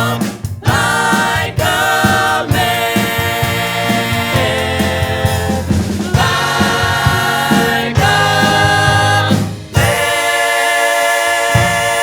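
A group of male voices singing close vocal harmony in held chords over band accompaniment, with brief stops between phrases; about ten seconds in the bass drops out under a sustained chord.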